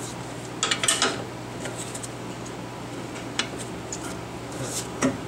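Metal clinks and knocks from a truck's front shock absorber and its mount as the shock is pushed by hand to collapse it into place: a quick cluster of clinks about a second in, another single knock midway and one near the end, over a steady low hum.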